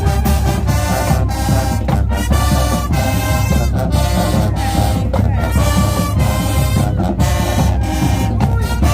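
High school show band playing loudly: brass in short held phrases over heavy drums.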